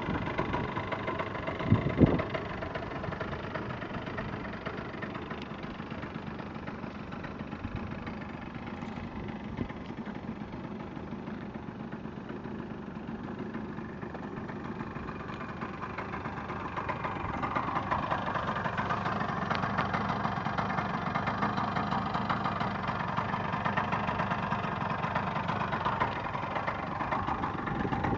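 2012 Yamaha BWS two-stroke scooter engine idling while the scooter stands still, with a couple of sharp knocks about two seconds in. A little past halfway the engine sound grows louder and fuller and stays that way.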